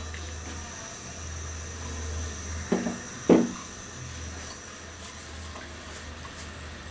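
Ghee and milk bubbling in a pan on the stove as they come to the boil: a steady low hum under an even hiss. Two short knocks come just before the middle.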